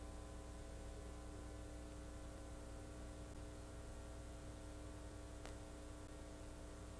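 Steady electrical hum with an even hiss underneath, and a single faint click about five and a half seconds in.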